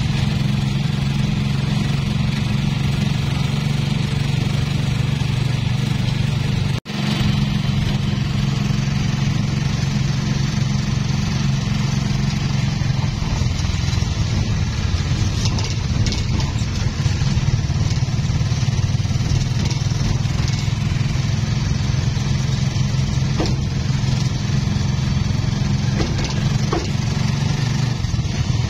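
Engine and road noise of a moving vehicle, heard from inside it: a steady low engine drone under a hiss of wind and tyres. The sound cuts out for an instant about seven seconds in, then carries on unchanged.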